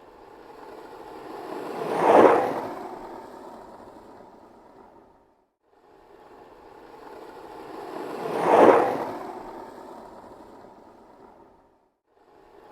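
A skateboard rolling past twice. Each pass grows steadily louder to a sharp peak and then fades away over about five seconds, with a short silent gap between the two.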